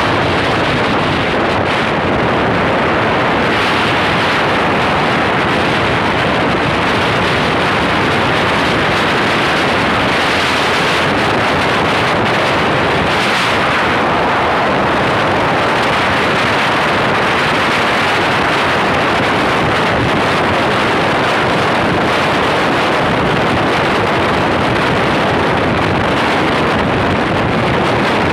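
Steady wind noise buffeting the microphone of a camera mounted on a Yamaha SS110 underbone motorcycle riding at road speed.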